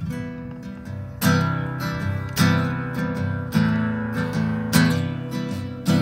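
Nylon-string classical guitar strummed, with a firm chord roughly every second and a bit and lighter picked notes ringing between.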